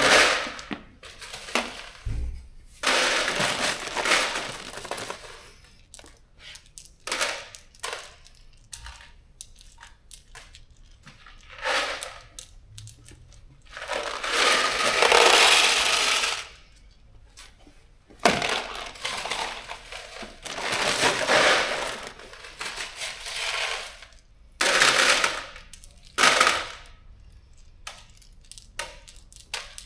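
Small metal bolts and fasteners clinking and rattling as they are handled and counted into a kit, in irregular bursts of a second or two with sharp clicks between.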